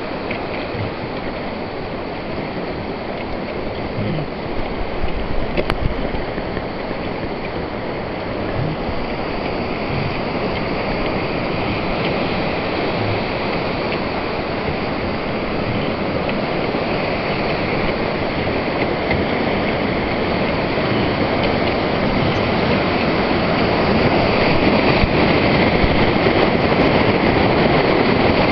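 Whitewater rapids rushing around a raft, growing steadily louder as the raft runs into the rapid.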